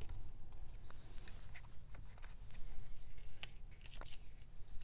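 Paper cutouts being handled and sorted: soft, scattered rustles and light taps of paper.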